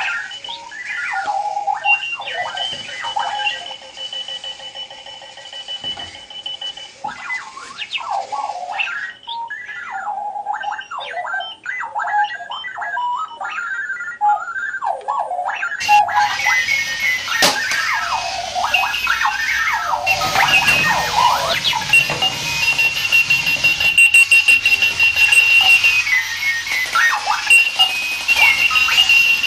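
Clocky robotic alarm clock sounding its alarm: a continuous string of electronic beeps and chirps that warble and bend up and down in pitch. About halfway through, a louder rushing noise and a low hum join in.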